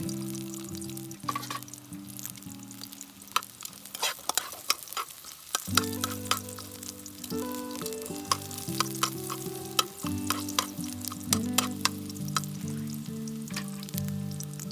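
Food sizzling as it fries, with many sharp irregular pops and spatters, under background music with sustained chords that drops out briefly about four seconds in.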